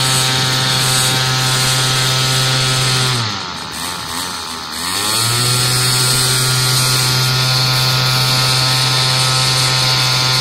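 Small two-stroke gas engine of an RC airboat running at high revs, driving its caged propeller, with a steady buzzing note. About three seconds in, the revs dip and it goes quieter and lower, then it climbs back to full speed a couple of seconds later and holds steady.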